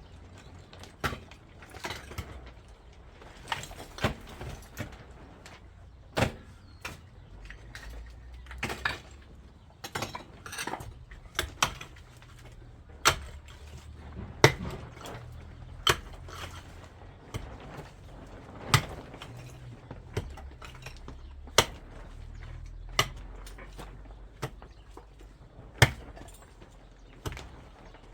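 Hand tools clinking and knocking on hard material in irregular sharp taps, roughly one a second, over a faint low hum.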